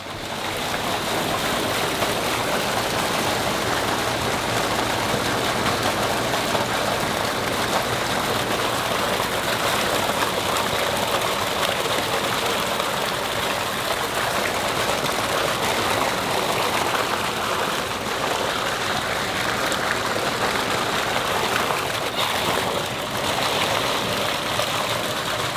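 Water and live shiners gushing out of a wide pipe and splashing into a concrete holding tank: a steady rushing, splashing pour as the bait fish are pumped over from a delivery truck.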